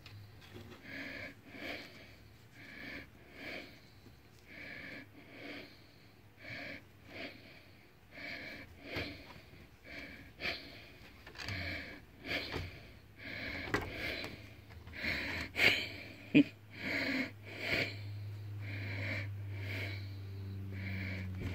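A person's quick, wheezy breaths close to the microphone, repeating evenly about every three-quarters of a second. A low steady hum joins about halfway through, and a couple of sharp taps come near the end.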